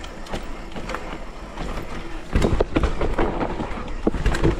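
Downhill mountain bike rolling down a dirt trail, with steady wind and tyre noise; a little over halfway in it gets louder and rougher, with a rapid clatter of knocks and rattles as the bike runs over bumpy ground.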